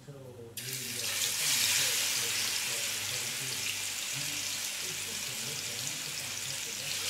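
Food sizzling in hot oil in a frying pan. The sizzle starts suddenly about half a second in, swells for a second, then settles into a steady hiss.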